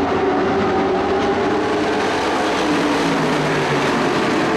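Engines of a pack of dirt-track race trucks running at speed together, a loud, steady drone of several overlapping engine notes that drift slowly in pitch as the trucks pass.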